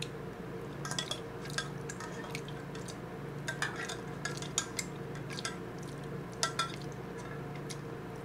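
Metal chopsticks tapping and scraping inside a small tin can of tuna, a scatter of light clicks.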